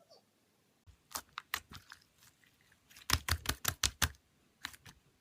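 Slime being pressed and squished by hand, giving a string of sharp, crackly clicking pops that bunch into a quick run of about eight a little past halfway.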